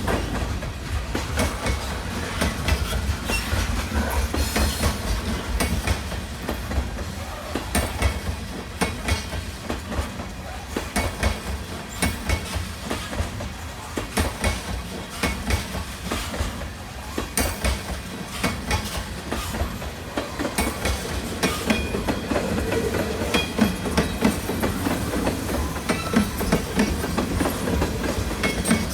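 Railroad cars rolling past on steel wheels, clicking and knocking over rail joints above a steady low rumble.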